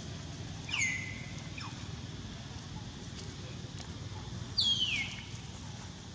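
Two high-pitched, whistle-like animal calls about four seconds apart, each sliding quickly down in pitch. The second call is the louder.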